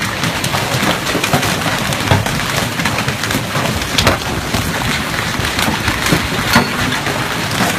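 Hail falling hard in a storm: a dense, loud patter of hailstones hitting, full of sharp separate strikes, with a few louder cracks standing out now and then.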